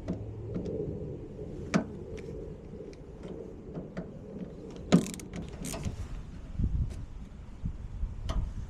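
Scattered metallic clicks and knocks of hand tools and parts being handled, the two loudest about two seconds in and five seconds in, with a few dull low thumps near the end.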